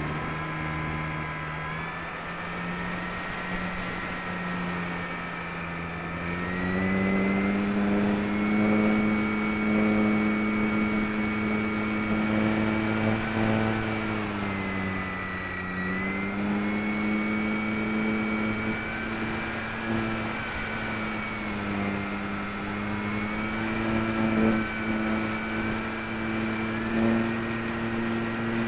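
Electric brushless motor and propeller of a HobbyKing Walrus RC glider droning in flight, as picked up by a wing-mounted keychain camera. The pitch rises about six seconds in, dips briefly around the middle and climbs again near the end as the throttle changes, with a faint steady high whine above it.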